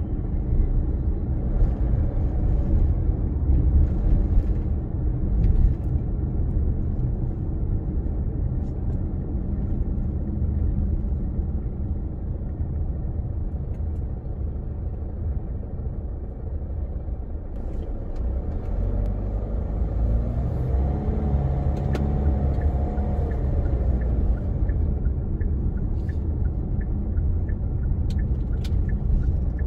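Car driving on city streets: a steady low rumble of engine and tyre noise. From about nineteen seconds in, the engine's pitch climbs and then falls back over a few seconds as the car speeds up.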